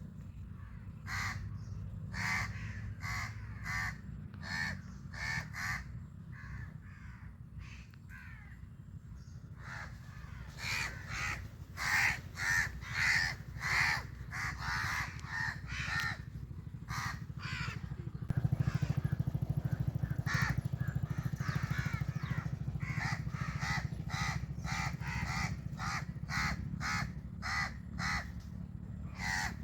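Crows cawing over and over, calls coming in quick runs and overlapping at times, over a steady low hum; a faint rushing noise joins a little past the middle.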